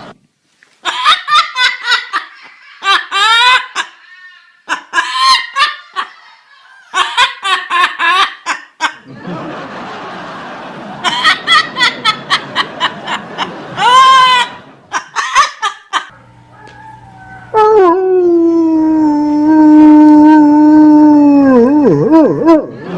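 Hearty laughter in quick repeated bursts, then a long held pitched note that wavers and falls away near the end.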